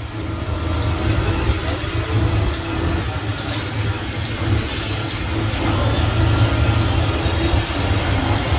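Studio tour tram running at a steady cruise, heard from a seat aboard the open-sided car: a continuous low engine rumble under road and air noise, growing a little louder about six seconds in.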